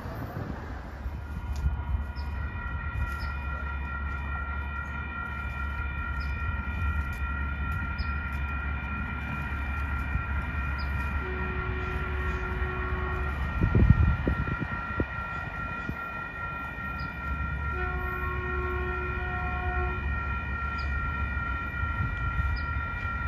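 Grade-crossing warning bells ringing steadily as a Sprinter diesel multiple-unit train approaches, sounding its horn once for about two seconds about halfway through and again in a series of blasts near the end. A single low thump, likely wind on the microphone, stands out about two-thirds of the way in.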